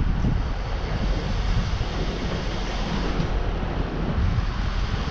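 Wind rushing over the microphone of a camera riding on a moving bicycle, a steady noisy rumble.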